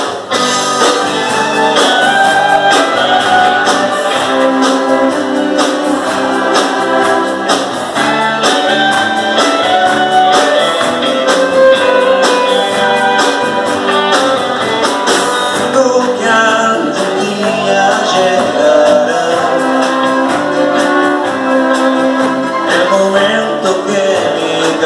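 Country band playing live, with fiddle, electric and acoustic guitars, bass, keyboard and drums keeping a steady beat.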